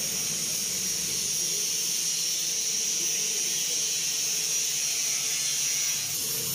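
A steady high-pitched hiss that holds at one level throughout, with a faint low hum beneath it.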